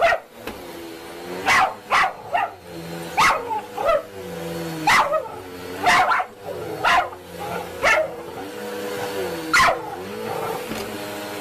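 A dog barking over and over, about a dozen short, sharp barks roughly a second apart, with whining between them.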